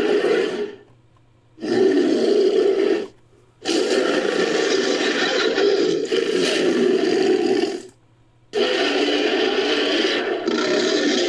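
Synthetic dragon roars layered from dragon and dinosaur sound effects. One roar trails off in the first second, then three more follow, separated by short silences; the third lasts about four seconds.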